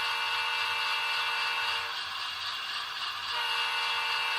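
Recorded diesel locomotive horn from the sound decoder of an N-scale ScaleTrains GE C44-9W (Dash 9) model, played through the model's onboard speaker. There is one steady multi-note blast of about two seconds, then a second blast starts a little over a second later.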